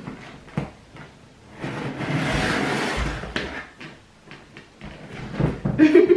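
Scissors cutting open a cardboard parcel: a scraping rasp for about a second and a half, with scattered clicks and knocks of the box being handled.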